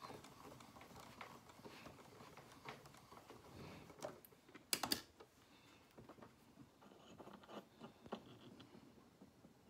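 Faint clicks and rustles of a Tempofoon portable wind-up gramophone being handled, with a sharper cluster of clicks a little before halfway; near the end the tonearm and soundbox are swung over the record.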